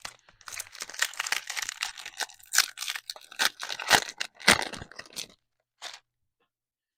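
Plastic trading-card pack wrapper crinkling and tearing open, a dense crackle for about five seconds, with a few sharp snaps near the end.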